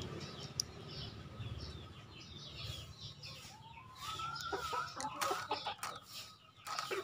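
Male green junglefowl calling: a single rising call about four seconds in, followed by several short sharp sounds.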